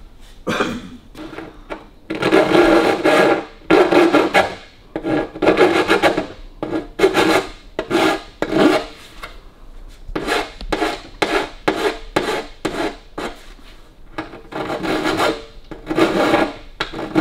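Flat metal file rasping along the edge of a 1932 Lincoln KA's sheet-metal bonnet in a long series of strokes, metal finishing to tidy the edge and take down high spots.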